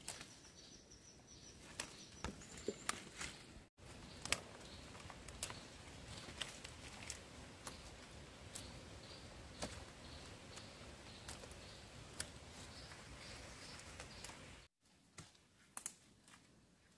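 Scattered sharp clicks and snaps over a faint steady background, with a thin high tone in the first two seconds. The sound drops out abruptly twice.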